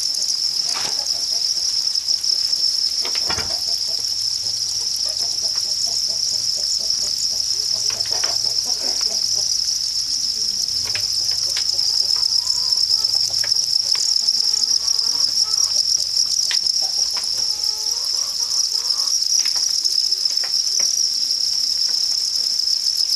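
A dense chorus of farmed crickets chirping in their rearing pens: a steady, high-pitched trill, with a few faint knocks now and then.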